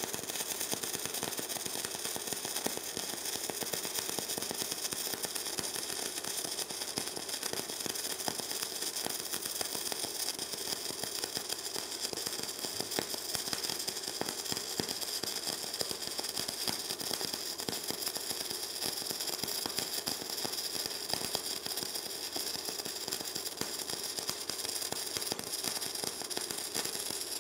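Gasless flux-cored wire welder arc running steadily while laying a bead on 6 mm stainless steel plate: a continuous, dense crackling.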